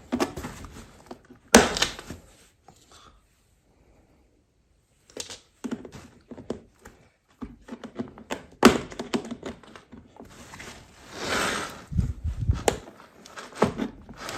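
Drilled-out rivets being worked loose and pulled from a suitcase's plastic wheel housing: scattered sharp clicks and knocks of tool on rivet and plastic, a brief scraping about two-thirds of the way through, then a couple of low thumps.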